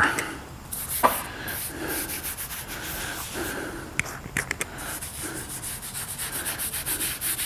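Foam applicator sponge rubbing leather cleaner onto a leather car-seat bolster in quick back-and-forth strokes, coming faster in the second half. A few sharp clicks, about a second in and again around four seconds.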